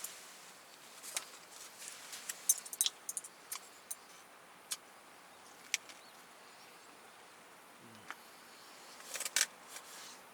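Light, scattered clicks and clinks of eating utensils against metal tableware while eating, with a quick cluster of clinks about nine seconds in.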